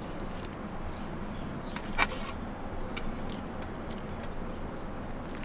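Quiet, steady outdoor background hiss with a few faint clicks, the clearest about two seconds in.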